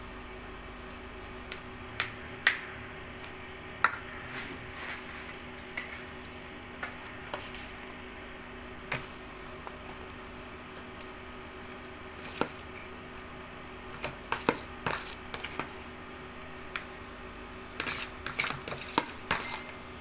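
Metal spoon scraping and tapping against a plastic bowl and small plastic cups while scooping thick ice cream mixture: scattered clicks and knocks, coming more often near the end, over a steady low hum.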